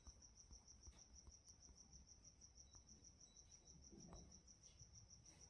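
Near silence: faint room tone with a cricket chirping steadily, a fast, even, high-pitched pulsing.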